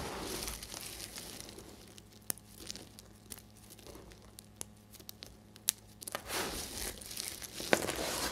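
Hands digging and sifting through a heap of dry, brittle soap chips, the pieces rustling and clicking against each other. A thick crinkly rustle at first, then a quieter stretch of scattered single clicks, then a thick rustle again near the end with one sharp click.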